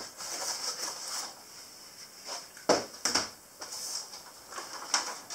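Packaging of a boxed model train set being handled as the box comes off its moulded tray: soft rustling with a few short knocks, the clearest a little under three seconds in.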